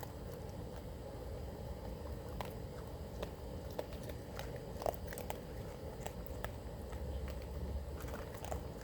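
Raccoons crunching dry kibble, heard as irregular sharp crunches and clicks over a steady low background rumble.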